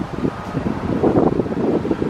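Wind buffeting the microphone in irregular gusts, over the distant steady roar of a Boeing 787-8's jet engines at takeoff power.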